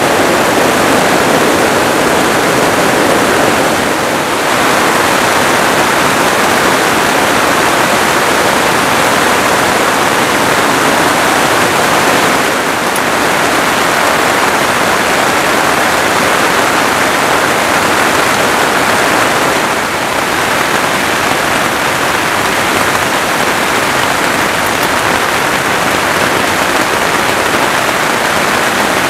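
Heavy rain pouring steadily onto tent fabric, a dense, even sound with no letting up.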